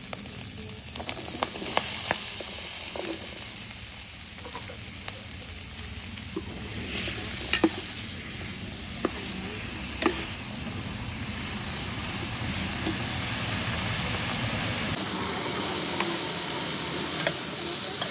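Pork belly and spring onions sizzling as they are stir-fried in oil in a pan, with scattered sharp clicks and scrapes of a metal spoon against the pan.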